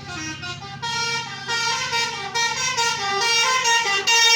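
A tour bus's telolet basuri horn playing a quick flute-like melody, about four notes a second, getting louder from about a second in. A bus engine rumbles low underneath.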